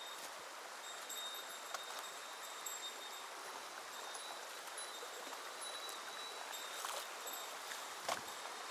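Mountain stream flowing, a faint steady rush of water, with a few light clicks and thin high tones that come and go.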